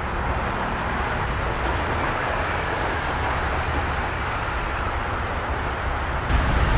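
Steady road traffic noise, an even rumble that swells about six seconds in, with a thin high whine coming in shortly before.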